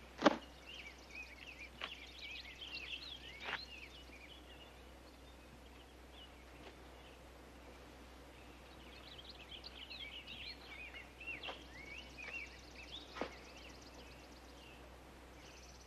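Small birds chirping in quick, twittering bursts, in two spells. A few sharp clicks stand out, the loudest about a third of a second in, over a faint steady low hum.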